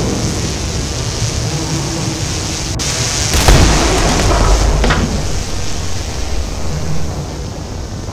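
Explosion sound effect: a deep boom about three and a half seconds in, its low rumble dying away over the next second and a half, over a steady low background rumble.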